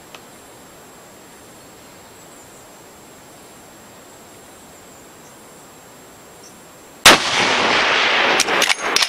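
Faint background hiss, then about seven seconds in a single loud rifle shot with a long decaying tail. It is followed by several short sharp cracks near the end.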